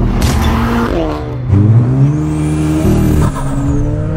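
Audi A3's engine accelerating hard through the gears. The pitch climbs, drops at a shift about a second in and again near three seconds, then climbs again.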